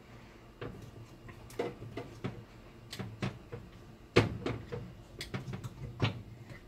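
Irregular clicks and knocks of small hard objects being handled and set down on a workbench, the loudest about four seconds in, over a faint low hum.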